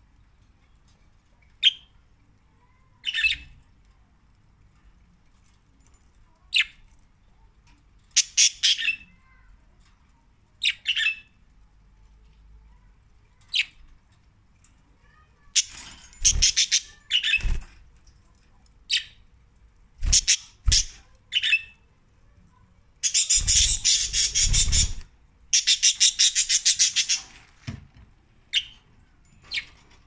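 Pet budgerigars calling: scattered short chirps and squawks. About two-thirds of the way in come two long stretches, each about two seconds, of fast, harsh chattering.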